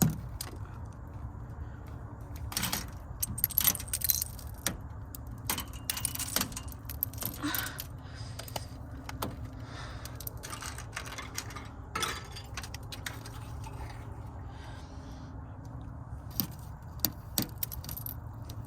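Irregular clicks, scrapes and light rattling over a steady low hum.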